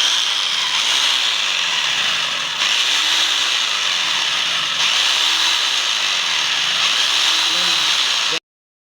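DongCheng DZC02-28 electric rotary hammer running with the trigger held, a loud, steady whirring hiss. It starts abruptly, steps up slightly in level twice, and cuts off suddenly near the end.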